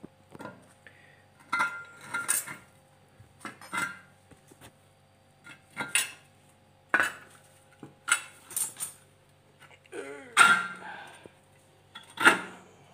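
Steel rebar rod clanking and scraping against a homemade rebar stirrup bender, a channel-iron bar with a bearing roller, as the rod is bent around it by hand. About ten sharp metallic clinks and knocks come at uneven intervals, with the loudest near the end. The tool is not fixed down, so it shifts and knocks as it is worked.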